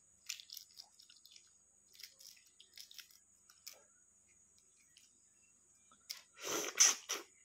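Balut eggshell being peeled by hand, giving faint small crackles and clicks of shell. Near the end come loud eating sounds at the mouth as the egg is raised to it.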